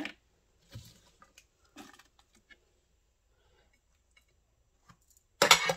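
Chopped onion and herbs dropped by hand into a plastic food-processor bowl: a few soft, scattered taps, then one sharp, loud clatter near the end.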